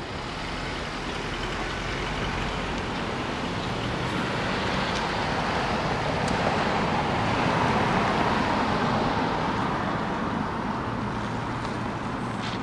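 Cars driving over the railroad crossing once the gates lift, with tyre and engine noise swelling to its loudest about eight seconds in and then fading as they pull away.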